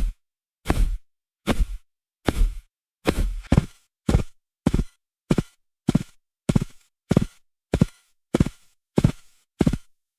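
Footsteps crunching through deep snow, one step at a time with silence between. The pace quickens a few seconds in, from about one step every 0.8 s to about one every 0.6 s.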